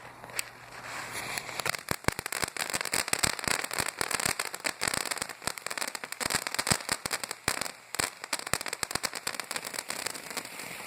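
World Class Fireworks Color Garden ground fountain burning: a hiss of spraying sparks with dense rapid crackling, picking up about two seconds in and dying away near the end.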